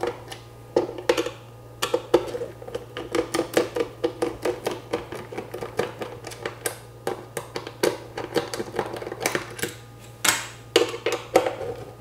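A screwdriver unscrewing the stock cooler retention bracket screws around an AM4 CPU socket: a run of quick, irregular light clicks and scrapes from the driver bit and the loosening screws, over a steady low hum.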